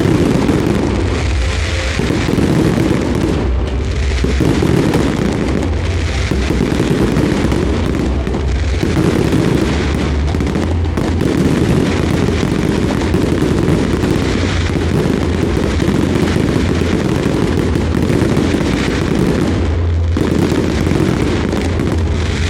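Dense fireworks barrage: heavy booming and crackling running together without a break, with brief slight lulls.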